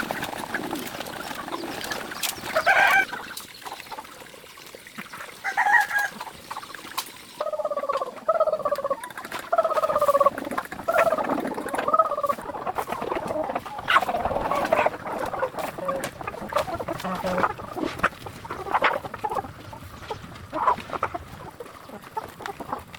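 Chickens clucking and squawking, a run of short pitched calls one after another, with scattered clicks and knocks among them.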